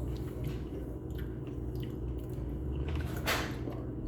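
Someone biting into and chewing a large dill pickle: small wet clicks and squishes, with one louder crunch a little after three seconds in.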